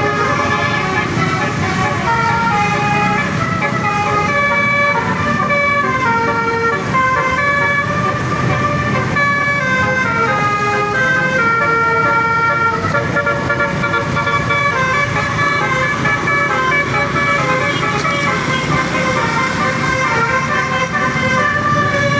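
Basuri telolet bus horn playing a long multi-note melody, its tones stepping up and down in pitch, over the steady low rumble of engines.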